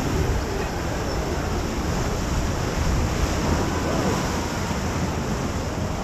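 Whitewater rushing and splashing around a round rapids-ride raft, with wind buffeting the microphone.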